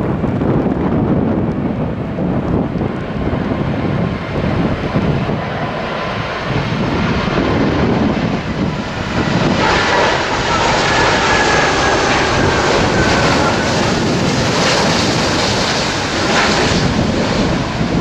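Twin-engine Airbus A330 airliner on final approach, its jet engines growing loud as it passes close overhead about halfway through, with a whine that slowly falls in pitch. Strong gusty wind buffets the microphone throughout.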